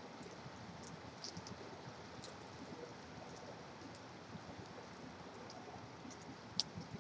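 Steady rain with the hiss of distant highway traffic under it. Scattered drip ticks run through it, one sharper than the rest near the end.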